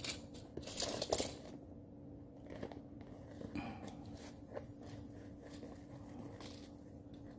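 Light clicks, taps and rustles of a kitten pawing and biting at a fabric lanyard and a small plastic toy car. They are busiest in the first second or so, then thin out to a few faint taps.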